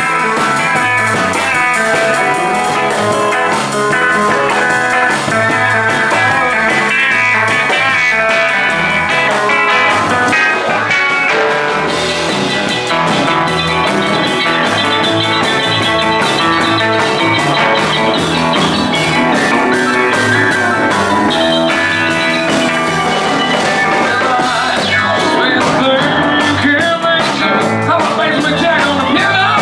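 Rockabilly band music led by guitar, with a steady beat.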